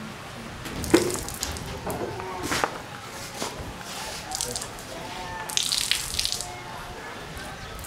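Water splashing and dripping onto a concrete floor in a few short, irregular bursts.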